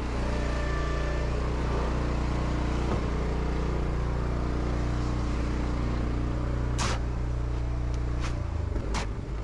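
An engine running steadily at idle, with one sharp click about seven seconds in and a brief change in its hum near the end.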